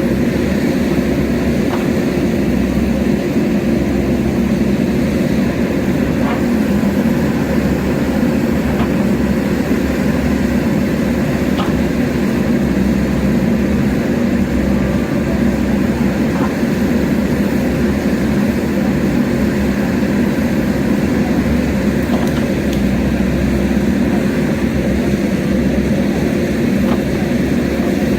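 JCB backhoe loader's diesel engine running steadily under load, with a few faint knocks scattered through.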